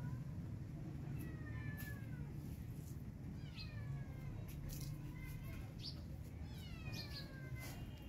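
A feral cat meowing several times, drawn-out calls that fall in pitch, calling for food. A steady low hum runs underneath.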